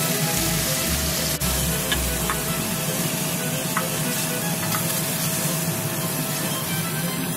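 Beef steak pieces sizzling steadily in hot oil in a stainless steel pot, with a few light ticks as wooden chopsticks turn and lift them.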